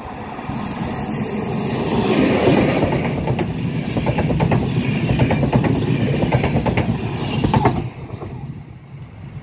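Electric-locomotive-hauled passenger train passing close by, its wheels clattering rhythmically over the rail joints. The sound drops off sharply near the end as the last coach goes past.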